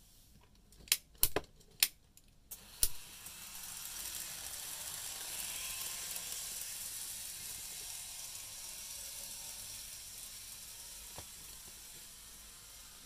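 A few sharp clicks in the first three seconds. Then the hissing whir of an N-scale model train running on track swells and slowly fades.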